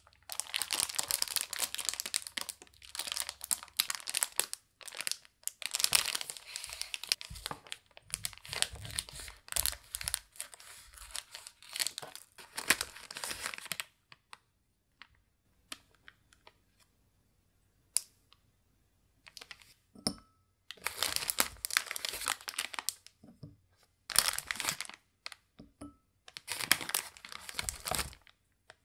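Plastic HARIBO gummy bag being torn open and crinkled by hand for a long stretch. After that come a few small clicks, then three shorter noisy bursts near the end.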